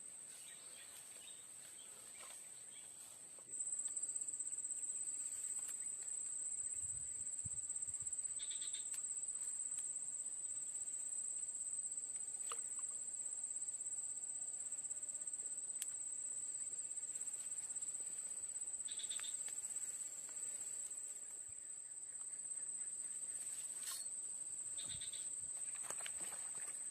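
Insects buzzing in one steady, high-pitched drone that gets louder about three and a half seconds in, with a few faint short chirps and clicks.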